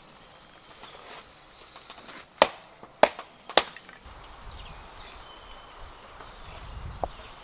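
A knife being batoned into wood: three sharp knocks about half a second apart, then a fainter one near the end.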